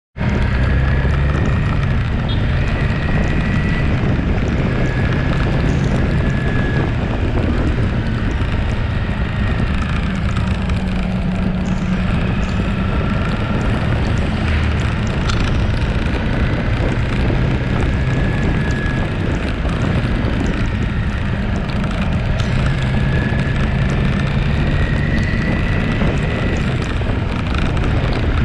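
Motorcycle engine running at road speed on a wet road, its pitch slowly rising and falling with speed, under steady wind rush on the microphone.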